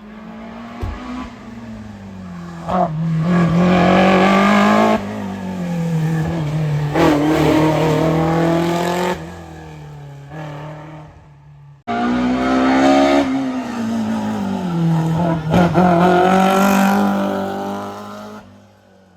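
BMW M3 E30 rally car's S14 four-cylinder engine running hard under load, its pitch dropping and climbing again with throttle and gear changes, with some tyre squeal. The sound cuts off abruptly about twelve seconds in and picks up straight away on another loud run, which fades out near the end.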